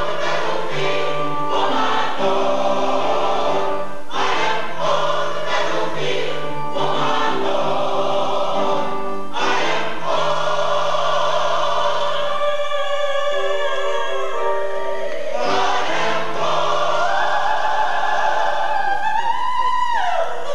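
Mixed-voice choir singing in full chords, each chord held for a second or two before the next. Near the end the top voices climb with a wide vibrato and the chord is released.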